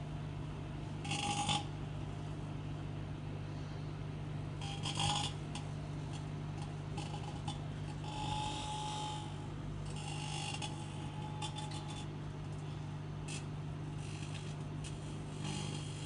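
Microwave oven running with a steady low hum, broken by several short spells of buzzing hiss as a match flame inside it turns to plasma.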